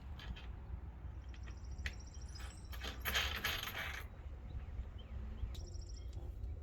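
Small metal hardware clinking and rattling, like washers and bolts being handled, with scattered clicks and a louder rattle lasting about a second around three seconds in.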